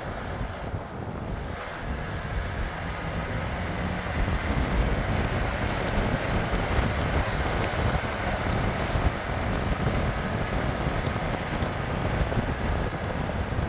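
Wind buffeting the microphone: a steady rushing noise with a heavy, gusting low rumble.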